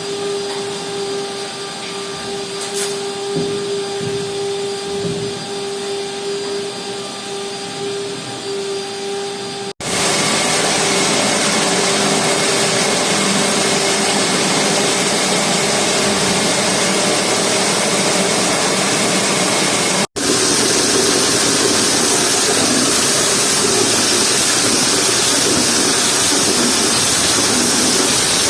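Duct-cleaning machinery running steadily with a vacuum-like motor noise and a steady hum. It breaks off abruptly twice, about ten and twenty seconds in, and is louder and hissier after the first break.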